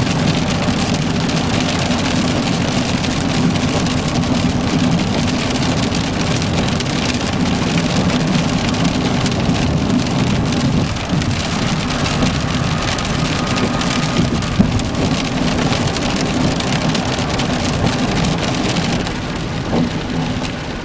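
Heavy rain pelting the car and windshield, heard from inside the cabin, over the steady hum of the car driving on the wet highway. It eases slightly near the end.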